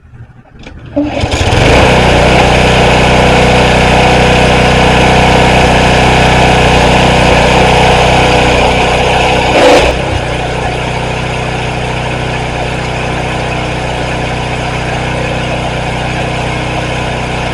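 Pressure washer running and spraying water, a loud steady machine drone with hiss. It starts about a second in, swells briefly just before the halfway point, then carries on a little quieter.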